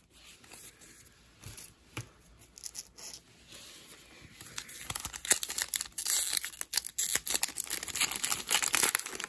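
Foil wrapper of an Upper Deck hockey card pack crinkling and being torn open by hand, a dense crackle starting about halfway through. Before that, only a few light clicks of cards being handled.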